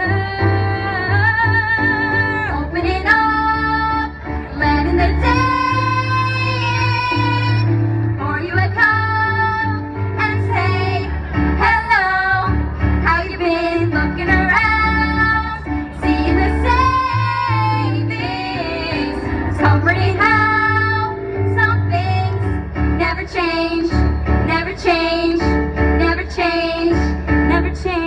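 Three young female voices singing a musical-theatre number in harmony over instrumental accompaniment with a steady bass line.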